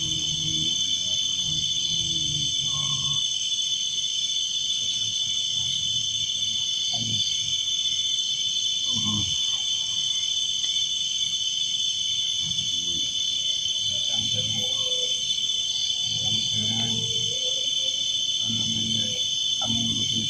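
A steady chorus of crickets trilling without a break, with low voices murmuring now and then beneath it.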